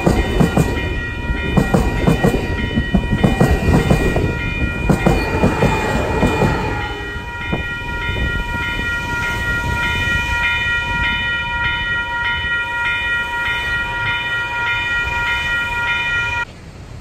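A train passing close by, its wheels clattering over the rail joints with a heavy rumble for the first several seconds, then easing off. Through it a high ringing of several steady tones continues, part of it pulsing about twice a second, and cuts off suddenly near the end.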